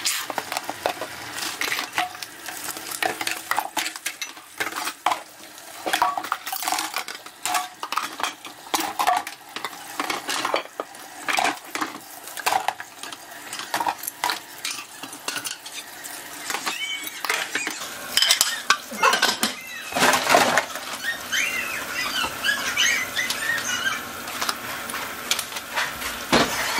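Dishwashing at a stainless steel sink: tap water running into soapy water while plastic cups, bowls and plates clatter and knock as they are handled and scrubbed. A few short squeaks come in the second half.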